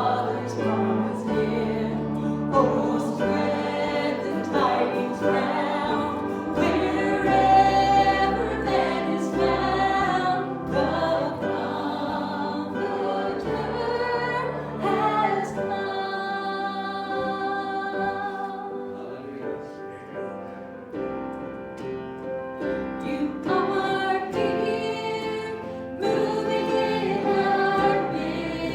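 A church congregation singing a worship hymn together, with instruments holding low sustained notes underneath.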